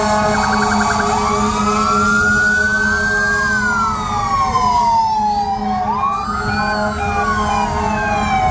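Several fire apparatus sirens wailing together, their pitches slowly rising and falling out of step with each other, with a brief rapid warble near the start over steady held tones.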